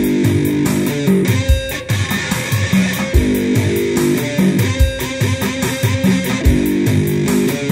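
One-string diddley bow amplified through a Roland Micro Cube, played as a metal riff with fast, evenly repeated picked notes.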